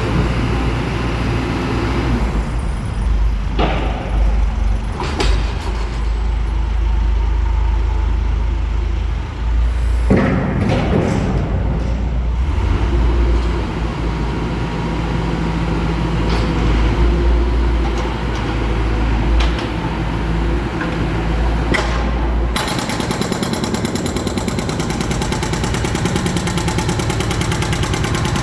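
Cat 420 backhoe loader's diesel engine running under load, with scattered knocks and clatters of concrete. Near the end it changes to a rapid, steady hammering rattle, typical of a hydraulic breaker pounding concrete.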